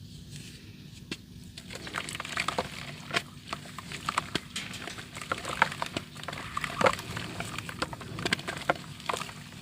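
Soft, water-soaked dirt crumbling: irregular crunches and crackles that begin about a second and a half in and come thicker as it goes on.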